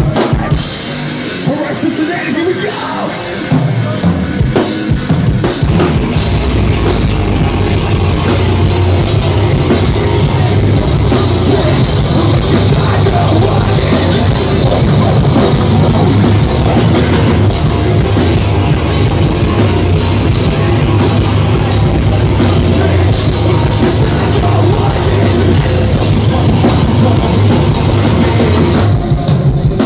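Heavy rock band playing live through a stage PA: drums, electric guitars and bass with vocals. About three or four seconds in, the drums and low end come in fully, and the music then runs on loud and dense.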